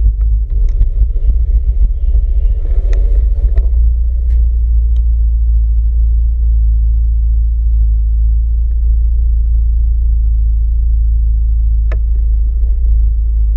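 Motorcycle engine running at low speed, a steady low rumble, while the bike creeps along at walking pace; the first few seconds are more uneven, and a single sharp click comes near the end.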